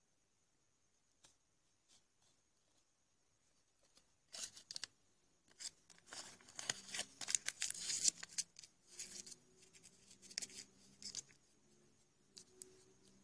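Paper crinkling and rustling as it is handled: a run of irregular crackles and clicks that starts about four seconds in and dies down near the end.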